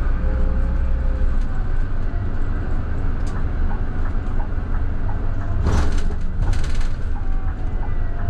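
Scania K320IB bus's five-cylinder diesel engine running steadily, with two short bursts of hiss a little past halfway.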